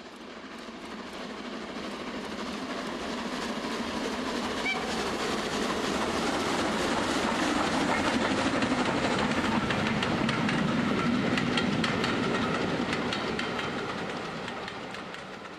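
Live steam model locomotive, a Regner "Konrad", running past on garden railway track: a dense rushing noise with rapid clicking. It swells to its loudest about two-thirds of the way through, then fades as it moves away.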